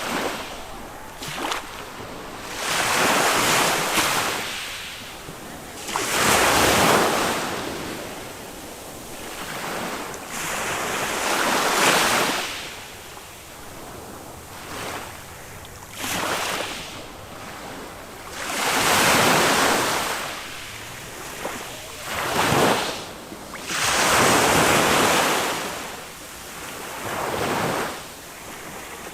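Small waves of a calm Mediterranean sea breaking and washing up the beach. Each one is a rush of surf that swells and fades, about every three to four seconds.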